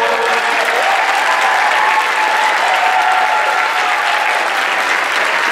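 Audience applauding steadily, with some cheering voices mixed into the clapping.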